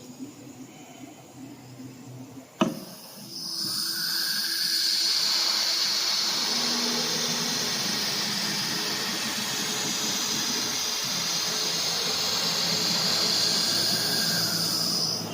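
A sharp click, then the AKM6090C CNC router's spindle spins up to a steady high-pitched whine, rising in pitch as it comes up to speed. It runs steadily for about ten seconds and begins winding down near the end.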